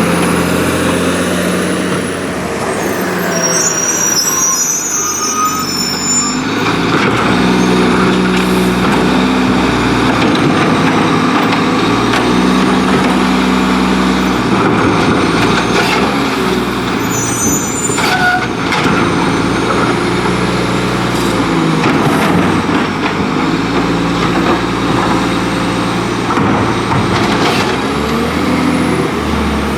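Autocar WX split-body garbage truck's diesel engine revving repeatedly in gear, the pitch stepping up and down, with short bursts of air hiss about three seconds in and again near the middle, and a few clunks.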